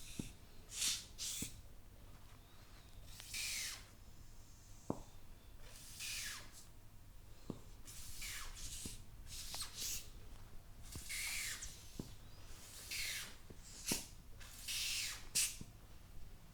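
A barber's hands massaging the head and working through the hair: repeated short rushing rub strokes about once a second, some falling in pitch, with sharp little clicks scattered between them.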